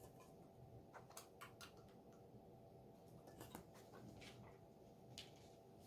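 Near silence with a few faint, scattered clicks of plastic LEGO bricks being handled and pressed together.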